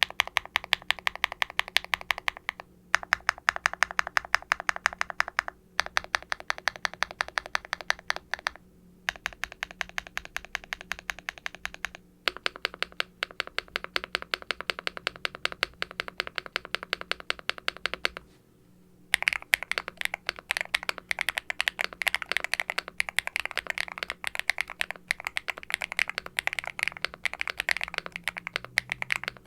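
Typing on a Hex80 mechanical keyboard with Owlab Ti HE linear switches, a carbon fibre plate and double-shot ABS keycaps, a deep, clacky keystroke sound. The keystrokes come in runs of a few seconds with short pauses between them, then turn faster and denser for the last third.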